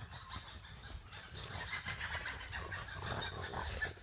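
French bulldogs moving about and snuffling, with footsteps rustling through grass and dry leaves: a string of small crackles over a low rumble.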